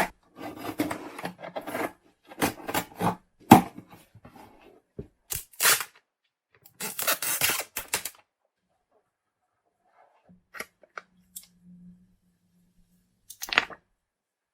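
Packaging being handled: short taps, scrapes and rustles come in clusters, then a long lull and a final short rustle near the end.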